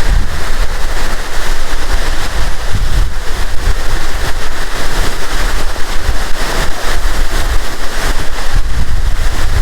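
Loud, steady roar of Latourell Falls' water up close, with wind buffeting the microphone in a gusty low rumble.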